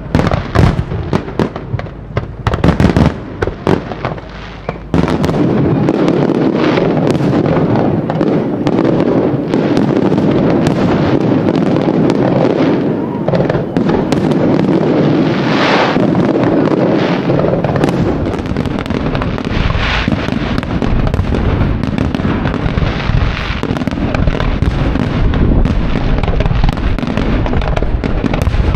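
Professional display fireworks going off: separate sharp shell bursts for the first few seconds, then, about five seconds in, a dense run of many rapid bursts blending together that carries on throughout, with a few louder peaks.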